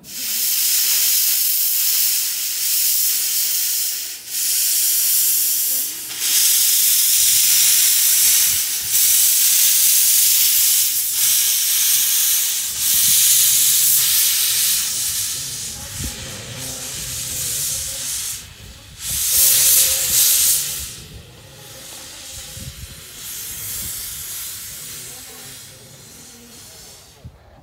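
Narrow-gauge steam locomotive pulling away with its cylinder drain cocks open: loud steam hissing in long blasts with short breaks, a low rumble of the engine under it from about halfway. The hiss dies down in the last several seconds as the engine runs off.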